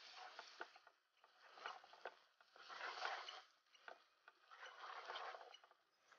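Wooden spatula stirring and scraping a sticky sesame-seed and sugar-syrup mixture around a frying pan: faint swishing strokes about every second and a half, with a few small clicks of the spatula against the pan.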